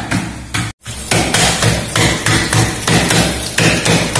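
Lemongrass stalks being pounded on a chopping board: quick, even blows about three a second, with a brief gap a little under a second in.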